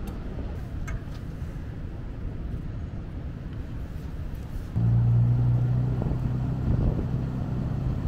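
Steady low rumble, then about five seconds in a vehicle engine hum comes in suddenly and louder, running at a steady pitch for about three seconds.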